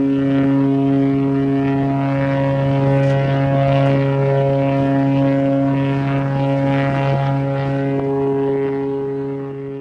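Cruise ship's horn sounding one long, deep, steady blast, easing a little near the end.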